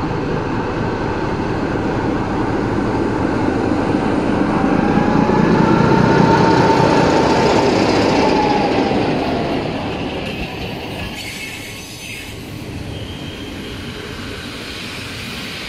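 A diesel-hydraulic shunting locomotive passing close by on the rails. Its engine and running noise swell to a peak about six seconds in and then fade, with a thin high squeal rising and falling as it goes past.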